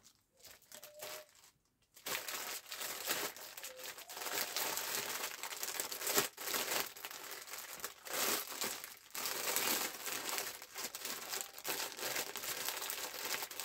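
Plastic bag crinkling and rustling as it is handled. It is faint for about the first two seconds, then runs on unevenly.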